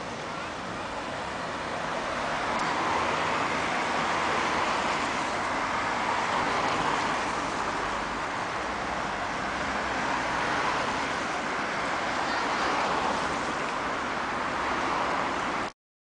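Road traffic passing on a wet road: a steady hiss of tyres and engines, swelling and easing as vehicles go by. It cuts off suddenly near the end.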